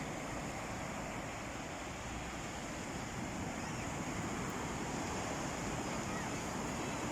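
Sea waves washing onto a beach: a steady rush of surf.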